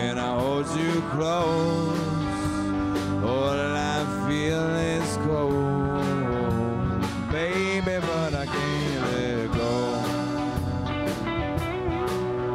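A live band plays an instrumental passage with electric guitars, bass guitar and drums over a steady beat, while a bowed electric upright string instrument plays bending, gliding melody notes.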